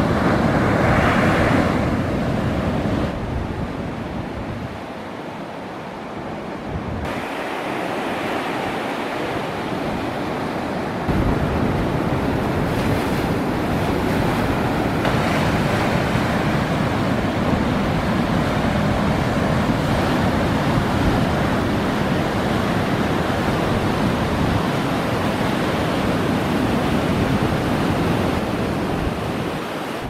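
Waves of the Saint Lawrence breaking over shoreline rocks and washing up onto the sand in a continuous surf, getting louder and softer a few times.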